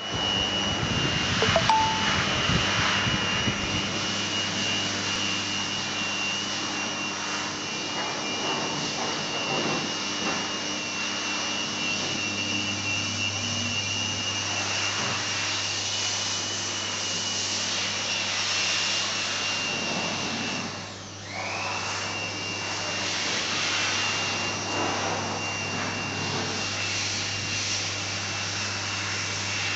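Powered-on 1500 W fiber laser welding machine running, its cooling unit giving a steady whirring with a thin high whine over a low hum. A few knocks come in the first seconds, and the noise dips briefly about two-thirds through, the whine sagging and returning.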